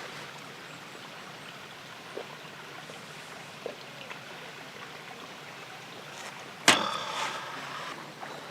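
A steady background hiss with a couple of faint ticks, then a sharp clack about two-thirds of the way through followed by a brief rattling clatter with a slight ring.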